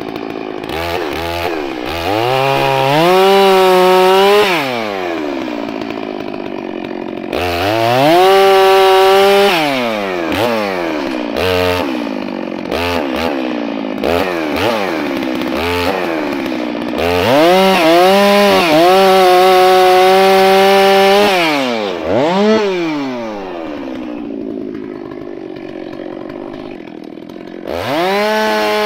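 Two-stroke chainsaw on a 36-inch bar, revved up again and again and held at high revs for two to four seconds at a time while cutting logs, dropping back to idle in between. There are short throttle blips near the start and in the middle, and a long idle before it revs up again at the very end.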